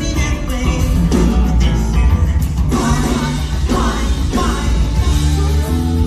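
Live band music with a steady beat, electric guitar and a male singer's lead vocals, heard from the audience in a large hall.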